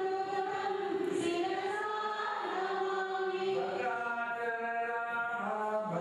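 Group of voices chanting a Hindu devotional chant in unison, in long held notes that step from pitch to pitch.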